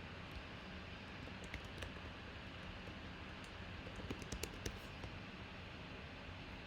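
A few light clicks over a steady hiss: two or three scattered ones, then a quick run of several about four seconds in.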